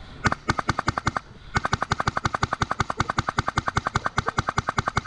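HPA-powered airsoft rifle firing: a few quick shots, then a long fully automatic burst at about ten shots a second.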